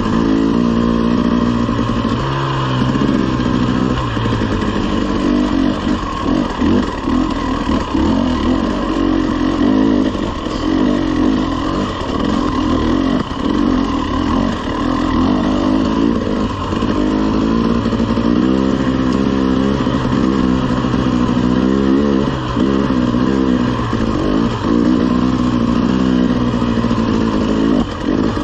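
Two-stroke KTM 300 enduro dirt bike engine running at low speed on a rocky trail, its pitch rising and falling again and again with the throttle, with scattered knocks and clatter from the bike over the rocks.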